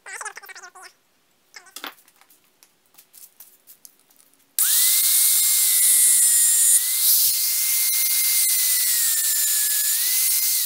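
A few light metal clicks and handling noises, then an electric angle grinder with a cutting disc switches on about four and a half seconds in and runs with a high steady whine and hiss. Its pitch sags briefly a couple of times before it starts to wind down at the end.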